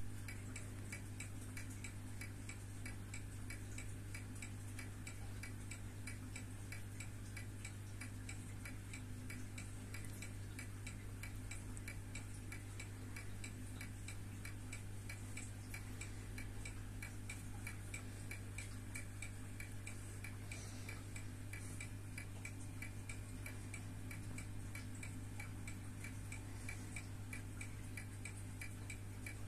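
Mechanical automatic wristwatch (1970s Citizen) running, its movement ticking rapidly and evenly, several ticks a second, over a steady low hum.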